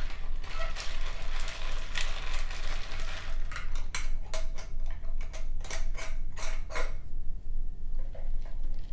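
A run of sharp ratcheting clicks, about four a second, starting about three and a half seconds in and stopping about seven seconds in, after a few seconds of softer handling noise.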